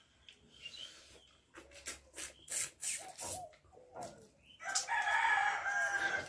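Mouth and hand eating sounds, chewing and lip smacks over mutton curry and rice, as short scattered clicks. Near the end a rooster crows once, loud and steady for about a second and a half, the loudest sound here.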